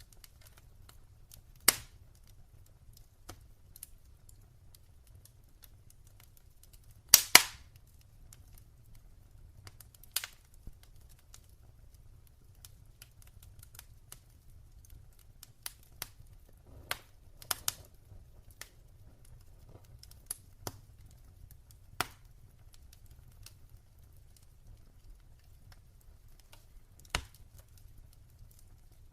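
Wood fire in a fireplace crackling, with scattered sharp pops, a few of them loud, including a double pop about seven seconds in, over faint small crackles.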